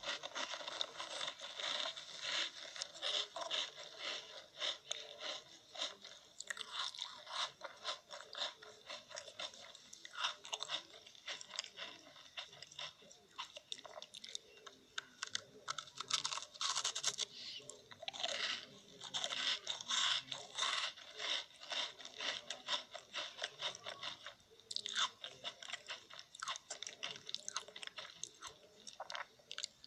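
Close-up crunching and chewing of crisp food, a dense run of quick, irregular crunches with louder clusters through the middle.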